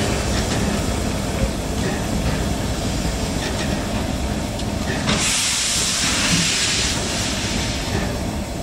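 Steam locomotive running with a steady low rumble, and a burst of hissing steam starting about five seconds in and lasting about two seconds.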